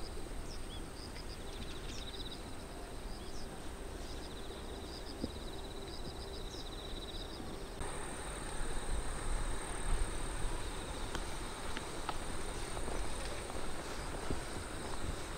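Outdoor ambience of insects in late-summer rice fields: a continuous high, thin insect trill with short repeated chirps and rapid trills over it, and a low rumble underneath. About halfway the ambience changes abruptly and the high trill becomes stronger.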